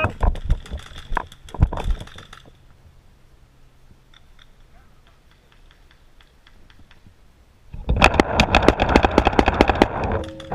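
Paintball markers firing: a rapid string of sharp pops in the first two seconds or so, then a lull with only faint scattered shots, then a loud, dense burst of rapid fire from about eight seconds in.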